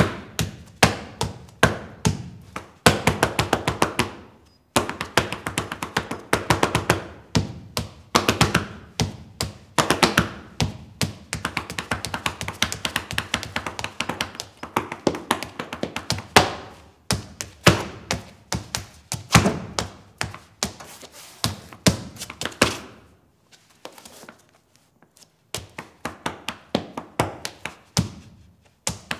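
Rapid percussive taps and stamps in flamenco-like rhythms, in dense runs broken by short pauses, with a brief lull a few seconds before the end.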